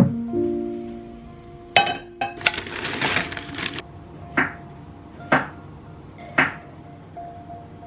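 Soft background music with kitchen work over it: a sharp clink, a second of rustling, then three knocks about a second apart on the worktop.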